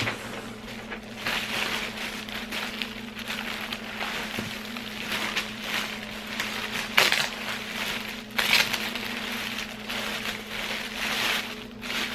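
Clear plastic bag crinkling and rustling in irregular bursts as it is handled and pulled off a leather tote. A steady low hum from a baby rocker's motor runs underneath.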